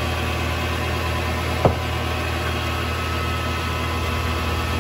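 Vevor MX 400 mini lathe running with a steady hum, its chuck spinning as a bolt is parted off. One sharp metallic click with a brief ring about a second and a half in.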